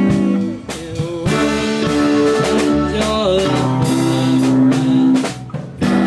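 Live band music: electric guitar chords and held notes over repeated percussive hits, with a note that slides in pitch about three seconds in.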